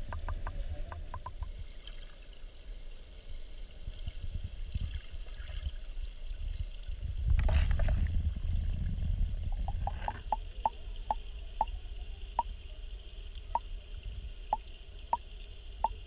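Muffled low rumble of stream water heard with the camera submerged. There is a louder surge about seven and a half seconds in, and a run of short, evenly spaced high ticks, about two a second, through the second half.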